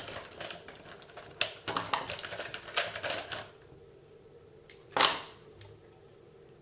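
Clicks, taps and scrapes of small RC car parts and tools being handled on a workbench, with one sharper knock about five seconds in.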